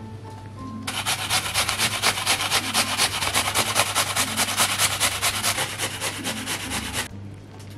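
A peeled apple being grated on a stainless steel box grater: quick, rhythmic rasping strokes that start about a second in and stop about a second before the end.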